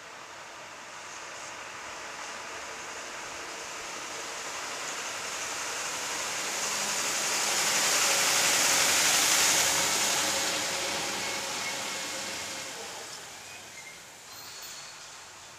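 A vehicle driving past on the street, mostly tyre and road noise, growing louder to a peak about nine seconds in and then fading away.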